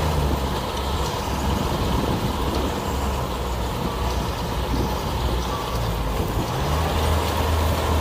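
Kubota DC-60 combine harvester running while harvesting rice: its diesel engine and threshing gear make a steady, dense mechanical din, with a low engine rumble that swells and eases every second or two.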